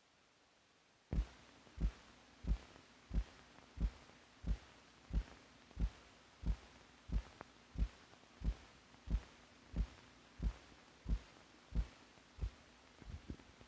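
Recorded heartbeat: a regular low thump about every two-thirds of a second (about 90 a minute), starting about a second in, over a faint steady hum. Near the end the beats become quicker, weaker and uneven.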